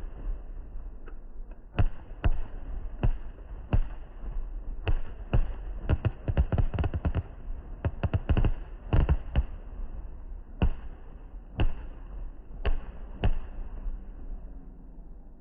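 Fireworks bursting in a string of sharp bangs, with a quick dense run of bangs from about six to nine seconds in, then fewer and fainter ones near the end.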